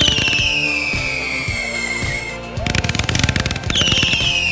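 Consumer fireworks cake firing volleys of comets. A fast string of pops is followed each time by a high whistle that falls in pitch, and the pattern repeats twice, with music underneath.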